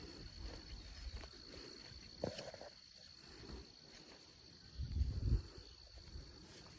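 Insects trilling in a steady high-pitched drone, with footsteps and low handling bumps, the loudest bump about five seconds in.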